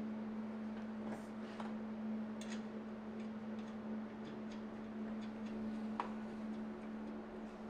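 Scattered light metallic clicks and taps of bolts and exhaust hardware being handled as the midpipe is bolted up to support it, over a steady electrical hum.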